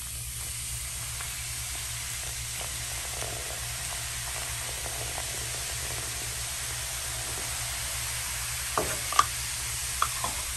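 Baking soda and white vinegar fizzing in a bathtub drain: a steady hiss of the foaming reaction, with a few light knocks near the end.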